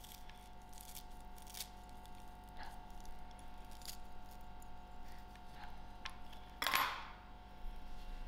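Faint rustling and small clicks of methi seedlings being pulled out of damp potting soil and handled, with one louder rustle near the end.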